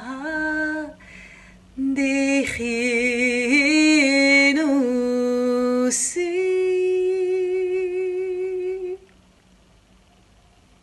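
A woman singing a Hebrew lullaby unaccompanied, with vibrato and audible breaths between phrases. She ends on one long held note that stops about nine seconds in.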